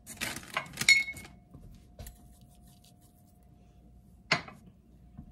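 Kitchen items clattering and clinking as they are moved about on a counter during the first second or so, then a single sharp click about four seconds in, with a faint steady hum underneath.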